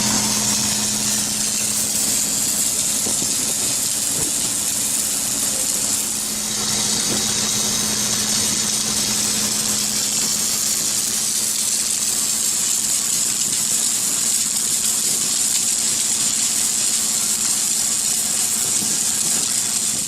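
Industrial machinery running steadily, with a constant high hiss over a steady low hum that dips briefly about six seconds in.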